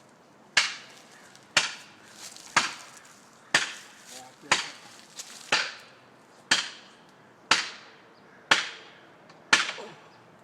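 Felling wedge being hammered into the cut in an elm trunk: sharp, regular strikes about once a second, ten in all, each ringing briefly.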